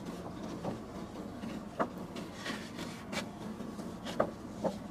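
A wipe rubbing over a clear plastic face shield as it is cleaned. Soft rubbing is heard with a few scattered faint crinkles and clicks from the flexing plastic, over a low steady hum.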